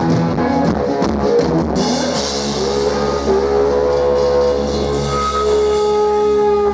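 Live blues-rock band with drum kit and slide guitar. About two seconds in, the rhythmic playing gives way to a crashing cymbal wash and long held notes, with the slide gliding up into pitch: the song's closing chord ringing out.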